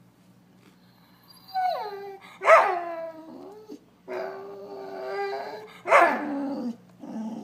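A border collie whining and moaning in drawn-out pitched calls, starting about a second and a half in. The calls are broken by two loud, sharp yelps, and a low grumble follows the second one: a needy dog's attention-seeking complaining.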